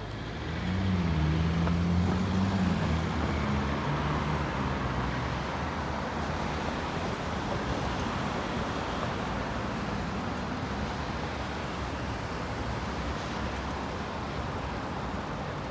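City street traffic. A car engine passes close about a second in, its note dipping and then rising, and the rest is a steady wash of traffic and tyre noise.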